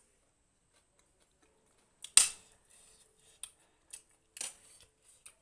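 Close-miked eating sounds: a loud crunchy bite about two seconds in, followed by several smaller crisp crunches.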